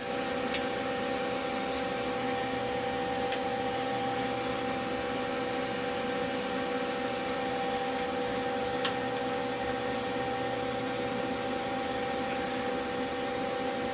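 Small cooling fan running steadily with a low hum, blowing on the amplifier's heat sink, which was getting warm under drive. A few faint clicks sound over it.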